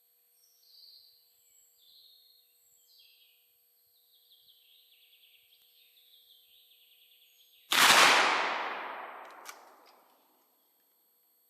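Small birds chirping and trilling, then a single shot from an Uberti replica 1860 Henry lever-action rifle firing a black-powder .44-40 cartridge, about eight seconds in. Its report dies away over about two seconds.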